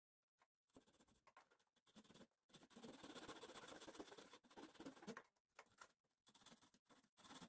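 A hand file rasping against the wooden frame of a model ship in short scratchy strokes, running almost continuously through the middle and breaking into shorter strokes towards the end.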